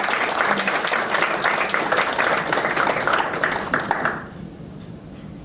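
Audience applauding, many hands clapping, dying away about four seconds in.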